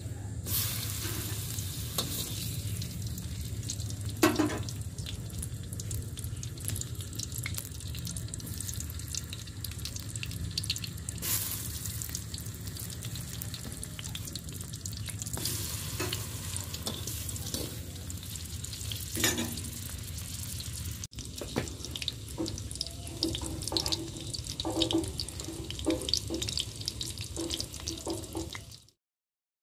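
Tempe slices frying in shallow oil in a wok: steady sizzling with crackles and pops, and a few louder knocks along the way. The sound cuts off abruptly near the end.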